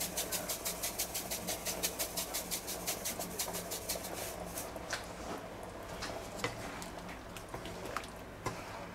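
Salt shaken from a shaker over a pan of goulash: a rapid, even rattle about six times a second that fades out about four to five seconds in. A few soft knocks follow as a wooden spatula stirs the pan.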